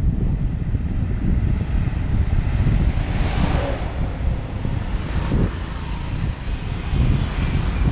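Wind buffeting the microphone of a camera riding along a road, over the steady running noise of the moving vehicle. A louder rushing swell comes about three seconds in, and smaller ones follow.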